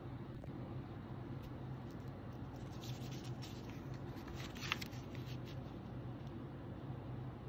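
Magazine pages rustling as the cover is opened and a page is turned, with a sharp paper snap about halfway through. A steady low hum runs underneath.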